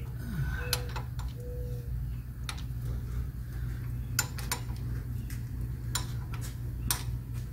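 Scattered light metallic clicks and clinks of hand tools and engine parts being handled, irregular and a few a second at most, over a steady low hum.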